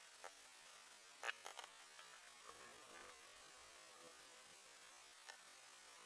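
Near silence: a faint steady hiss with a few soft clicks, the clearest about a second and a half in.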